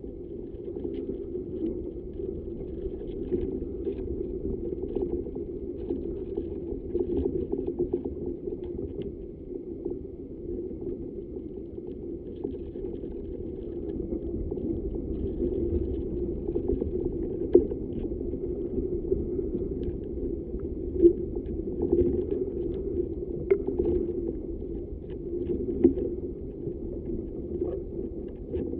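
Wind-driven vibrations inside a tree trunk, picked up by a microphone pressed into a crack in the bark: a steady low rumble that swells and eases with the wind, with a few sharp clicks along the way.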